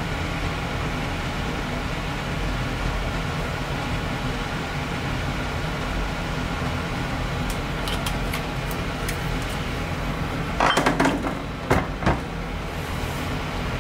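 A steady mechanical hum, like an appliance or fan running, with light clicks and then a few short louder noises near the end as a honey squeeze bottle is handled over the sandwich.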